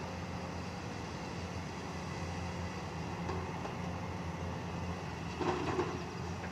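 Excavator's diesel engine running steadily, with a brief louder clatter about five and a half seconds in.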